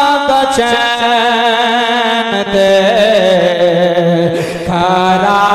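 A man singing a slow Punjabi devotional verse in praise of Fatima in long held notes, with a wavering, ornamented turn in the middle of the line.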